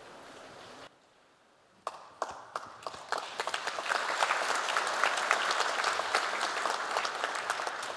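Audience applause: a few scattered claps about two seconds in, quickly building into full, steady applause from many hands.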